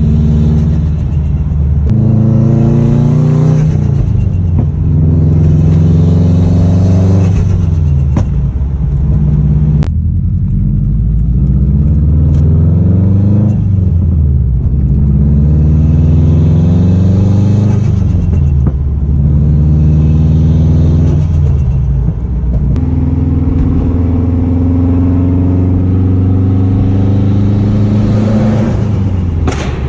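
Subaru WRX's turbocharged 2.5-litre flat-four, run through a catless downpipe and aftermarket exhaust, accelerating hard through the gears: its pitch climbs and drops again and again at each shift. It has a new front-mount intercooler, and the turbo noises and flutter are what the owner says it makes.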